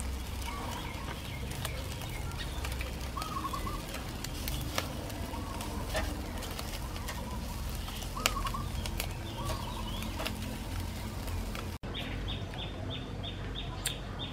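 Birds calling repeatedly outdoors over a steady low background, with scattered sharp clicks as metal tongs turn chicken-wing skewers on a charcoal grill. Near the end a quick, evenly repeated high chirp comes in.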